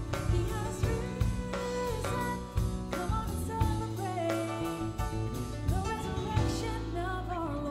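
Two-track live recording of a church service band: a voice singing a bending melody over a drum kit and bass, with regular drum hits.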